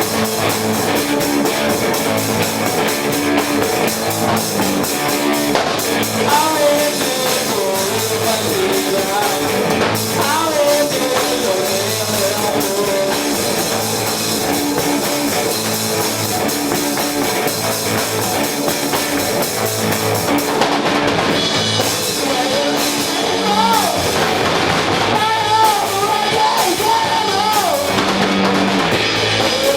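A live garage rock band playing loud and steady: a pounding drum kit and electric guitars.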